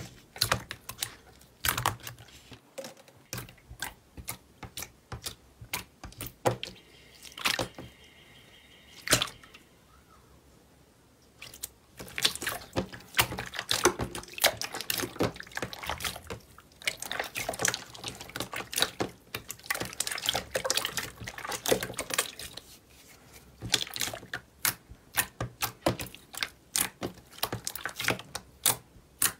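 Thick purple slime squeezed, kneaded and stretched by hand, giving dense runs of wet clicks and pops, with a quieter pause of a few seconds about a third of the way in.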